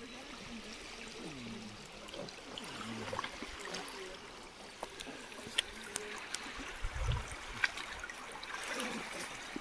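River water flowing and trickling steadily, with small splashes and clicks in the flow. A brief low thump comes about seven seconds in.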